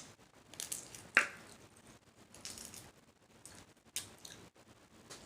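Shellfish shells being cracked and peeled by hand: a few sharp snaps, the loudest about a second in, with crackly, wet squishing between them.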